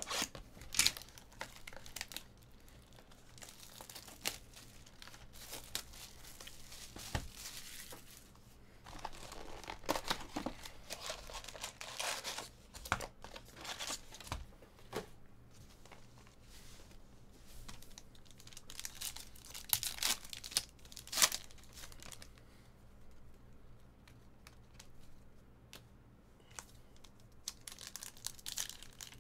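Trading card box and pack wrappers being torn open and crinkled by hand, in irregular bursts of rustling with a few sharper snaps.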